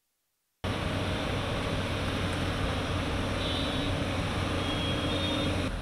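Steady traffic noise on a flooded road, with a vehicle engine running as a low hum under it. It starts abruptly about half a second in.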